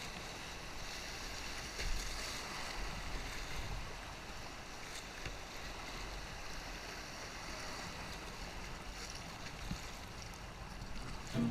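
River water flowing in a steady rush, with a couple of faint splashes.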